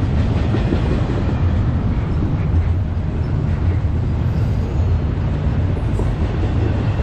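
Double-stack container well cars of a CSX intermodal freight train rolling past close by: a steady low rumble of steel wheels on rail, with occasional clicks.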